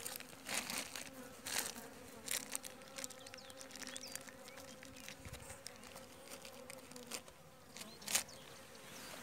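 Honeybees humming steadily in an open hive, with a few short rustles from handling, the loudest near the end.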